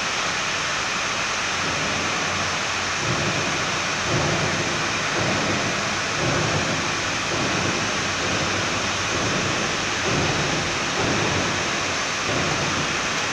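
Steady, even rushing hiss throughout, with faint muffled voices underneath from about three seconds in.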